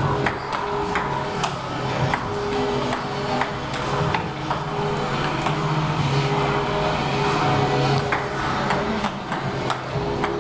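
Table tennis ball clicking as it bounces on the table and is struck with chopping boards used as paddles, a rally of quick, irregularly spaced hits. A steady drone runs underneath.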